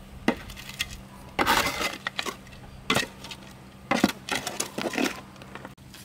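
Bamboo poles knocking and clattering against each other as they are handled: several sharp knocks and short clattering bursts, the longest about a second and a half in and a cluster around four to five seconds in.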